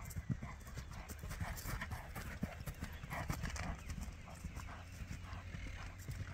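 Hoofbeats of a ridden overo horse cantering on grass turf, a steady run of soft thuds.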